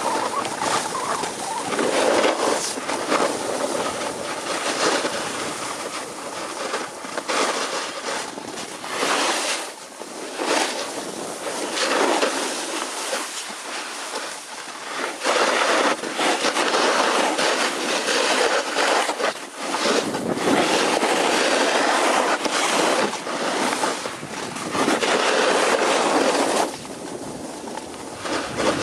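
Wind buffeting the microphone and the rasp of edges sliding over packed snow during a fast downhill ski run. The noise swells and drops every few seconds as the turns link.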